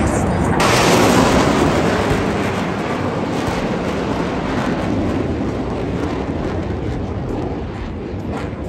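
Loud jet noise from a military jet passing low overhead, coming in suddenly about half a second in and slowly fading away.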